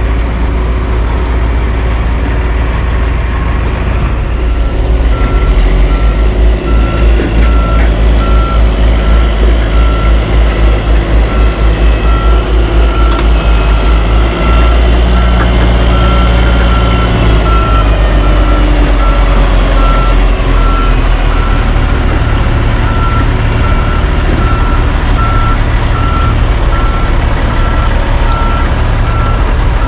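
Dump truck backup alarm beeping steadily, about once a second, starting a few seconds in, over the rumble of heavy diesel truck engines. The engine sound throbs rhythmically for several seconds in the first half.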